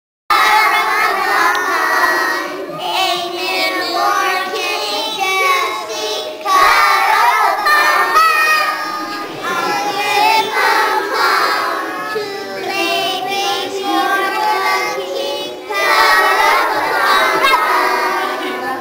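A group of young children singing together as a small choir, in phrases with short breaths between them; the singing cuts in suddenly at the start.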